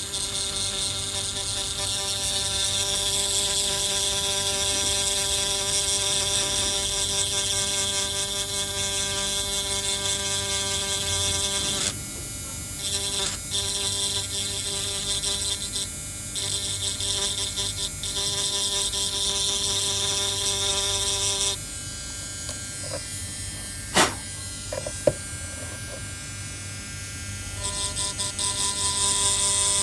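Small handheld electric grinding pen running with a steady whine while its conical bit works on the Wi-Fi chip of an iPhone 6s logic board, where a short circuit has been found. The whine drops out briefly near the middle, stops for several seconds later on with two sharp clicks, then starts again near the end.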